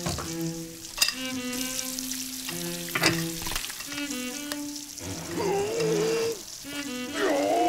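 Water hissing as it gushes and overflows from a bathroom sink, under a music score of held notes with sharp accent hits near the start, about a second in and about three seconds in. Wavering tones come in past the halfway point.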